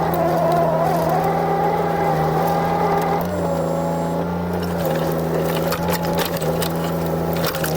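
JCB 8026 mini excavator's diesel engine running steadily under working load, with a hydraulic whine that shifts in pitch about three seconds in. Scattered clicks and knocks run through it.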